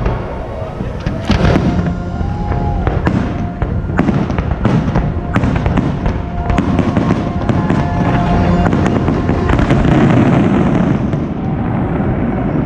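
Fireworks going off in a rapid barrage, many bangs and crackling bursts in quick succession, with the show's music playing faintly underneath.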